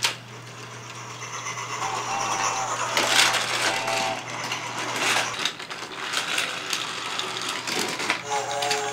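Battery-powered VTech Go! Go! Smart Wheels toy train running along its plastic track, its small motor, gears and wheels rattling and clicking. A few short tones from the toy sound now and then.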